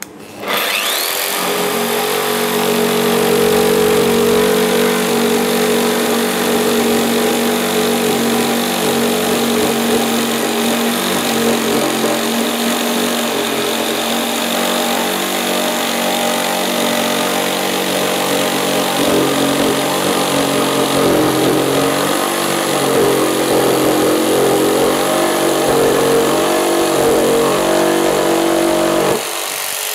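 Festool PS 300 jigsaw starting up with a rising whine, then running steadily as its blade saws through 54 mm thick chestnut. Its motor note wavers up and down in the later part of the cut. The cutting sound drops away about a second before the end while the motor keeps running.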